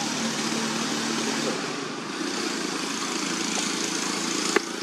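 Steady outdoor background noise, like distant engine noise, with a faint hum that fades out in the first second or so and a single sharp click near the end.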